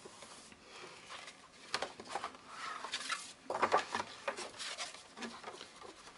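Kraft cardstock and paper envelope pages rustling and flapping as they are lifted, folded and shifted on a cutting mat, in irregular scrapes and crinkles that are loudest a little past halfway.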